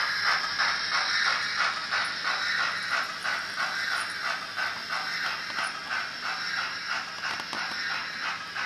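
Märklin model steam locomotive and its coach running along the track, making a steady rhythmic beat of about five a second that slowly grows fainter.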